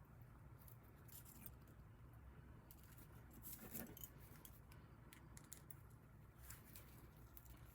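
Faint, scattered scratching and clicking of small hand-tool craft work, a little louder about halfway through, over a low steady hum.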